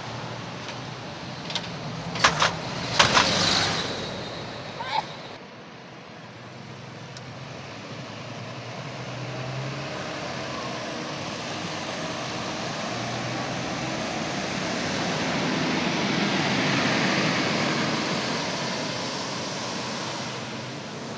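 Scania K230UB city bus: several short, loud air hisses from its pneumatics in the first few seconds. Its engine then runs on, with engine and road noise swelling to a peak and fading as a vehicle passes close.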